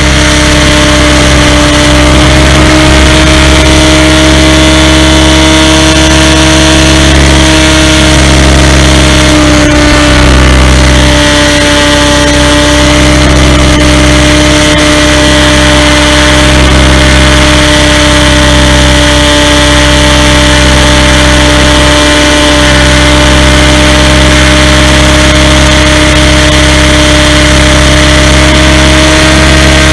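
Electric motor, gearing and rotor blades of a SAB Goblin 500 RC helicopter in flight, a loud steady whine at a nearly constant pitch over a rumble of rotor wash and vibration, heard close up as if from a camera mounted on the helicopter.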